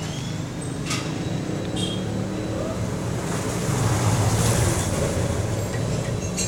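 Low rumble of a passing motor vehicle, swelling to its loudest about four seconds in and then easing off. Two light clicks come in the first two seconds.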